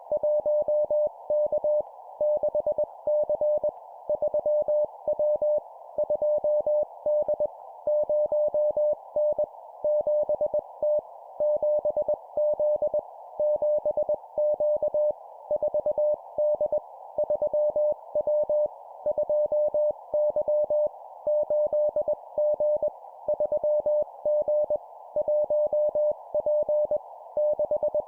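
Morse code (CW) at 20 words per minute: a single steady mid-pitched tone keyed in dots and dashes, sending short groups of letters and numbers separated by brief gaps. A steady band of hiss runs underneath.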